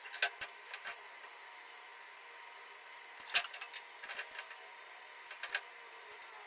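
Scattered light clicks and taps of kitchen utensils against a pan and cookware during cooking, over a faint steady hiss, with a small cluster of taps a little past the middle.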